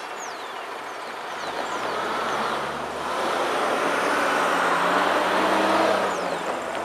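Road vehicles' engines rising in level from about a second and a half in, as cars pull away and drive across a railroad grade crossing just after a freight train has cleared it, over the fading rumble of the receding train.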